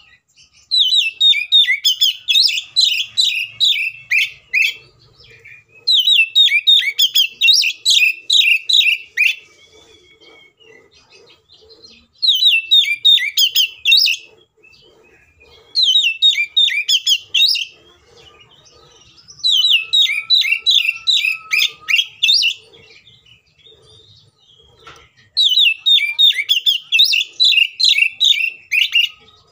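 Oriental magpie-robin singing in six loud bouts of rapid, sharp, repeated whistled notes, each bout two to four seconds long with short pauses between. This is its aggressive 'fighting' song.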